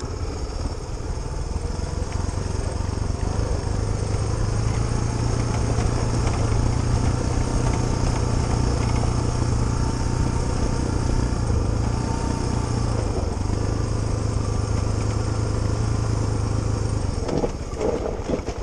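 Suzuki DR350SE's single-cylinder four-stroke engine pulling at steady revs while riding a rough dirt track, easing off near the end as the bike slows.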